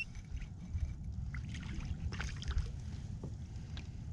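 Low, steady rumble of wind on a camera mounted on a kayak, with faint, scattered ticks and rustles from fishing tackle being handled as a fish is brought in.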